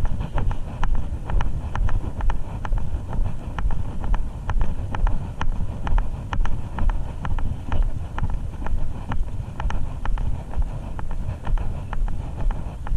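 Wind rumbling on a body-worn action camera's microphone, with a run of light clicks throughout and a loudness that swells and dips about twice a second.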